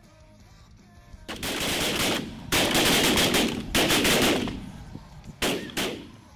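A group of shotguns firing many rapid, overlapping shots, starting about a second in. The shots come in four close bursts, with a short gap before the last: a volley of hunters shooting at snow geese.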